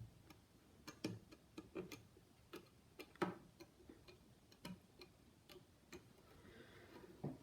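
Faint, irregular small clicks and taps: HM50256P-15 DRAM chips being handled and pressed into IC sockets on a circuit board.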